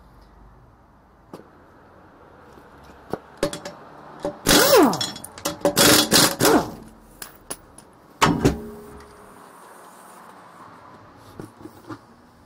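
Impact wrench hammering in several short bursts, the tool's pitch falling as it spins down after each, as it undoes the last two lug nuts on a rear wheel. A few separate knocks come before and after, one loud one about eight seconds in.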